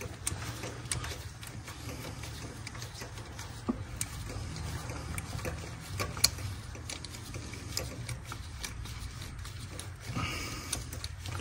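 Ratchet clicking in short irregular runs as it is swung back and forth on a swivel socket and extension, backing a spark plug out of a Toyota 5.7 V8 cylinder head, over a low steady hum.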